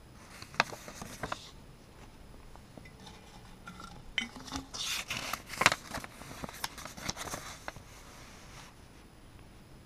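Folded paper notes rustling and crinkling as they are handled, with sharp clicks and taps against a glass jar. A few clicks come about half a second and a second in, then a busier run of crinkling and taps from about four to eight seconds in.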